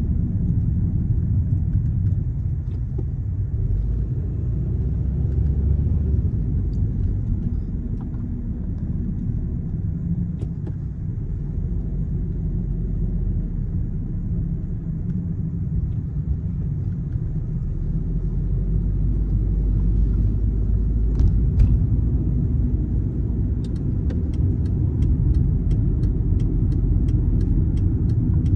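Car driving through city streets: a steady low rumble of engine and tyres on the road. Near the end a faint, regular ticking joins in, about two ticks a second.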